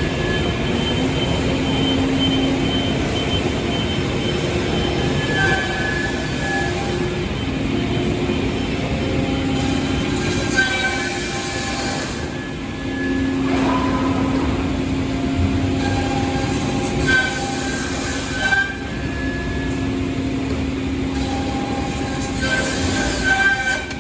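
Pade MZ Pluris CNC machining center running: steady machine noise with motor and spindle tones that start, stop and change pitch every few seconds, and a few brief louder bursts of cutting noise.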